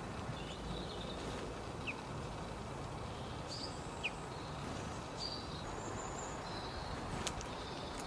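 Faint chirps and a couple of short, falling high calls from small garden birds over steady low outdoor background noise, with one sharp click about seven seconds in.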